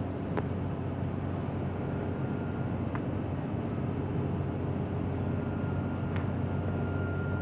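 Steady low rumble of city road traffic, with a few faint clicks and a faint steady high tone that comes in about two seconds in and again in the last couple of seconds.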